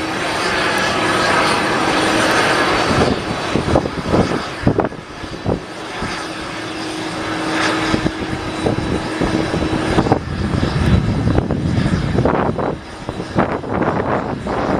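Airliner engines running on the ground: a loud, steady engine noise with a hum that drops out after about three seconds and returns for a few seconds mid-way.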